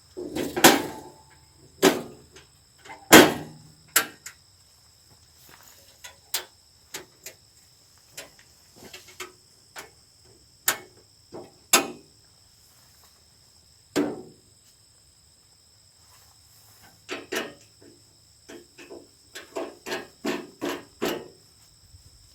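Scattered knocks and clanks of hand work on a portable bandsaw mill during blade maintenance, loudest in the first few seconds and bunched again near the end. A steady high insect chirring runs underneath.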